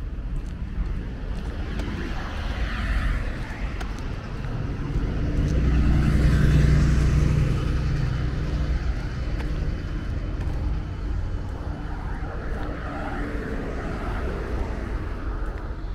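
City street traffic rumbling steadily, with one motor vehicle's engine passing close by, growing loudest about six or seven seconds in and then fading.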